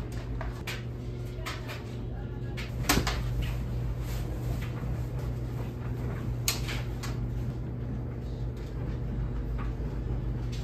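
Small clicks and knocks from food containers being handled during a meal, with two sharper knocks about three and six and a half seconds in, over a steady low hum.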